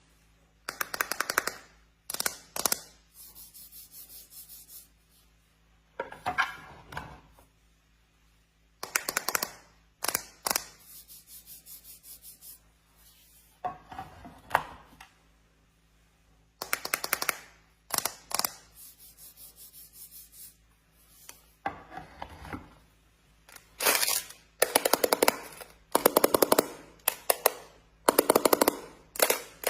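Small hard plastic balls clattering and rattling in repeated bursts of rapid clicks, about a dozen times, with quieter rubbing and scraping in between.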